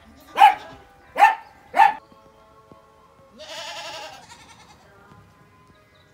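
A small dog barks three times in quick succession, short sharp barks. About three and a half seconds in, a goat gives one wavering bleat lasting under a second.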